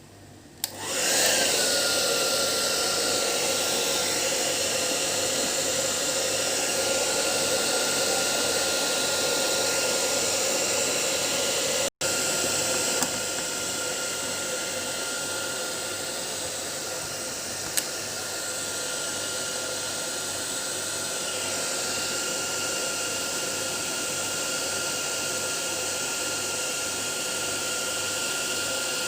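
Hair dryer switched on about a second in, its motor whine rising and then settling into a steady blowing hum. It briefly drops out once near the middle and then keeps running.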